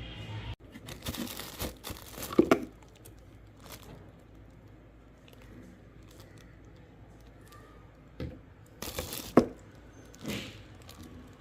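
Packaging being torn open and crinkled by hand in two bouts, about a second in and again near the end, each with a couple of sharp cracks.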